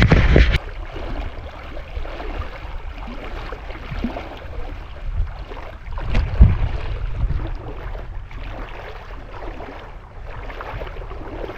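Shallow creek water splashing and sloshing as someone wades, with a constant low rumble of wind buffeting the microphone. The loudest splash comes right at the start, with a lower, rumbling gust around six seconds in.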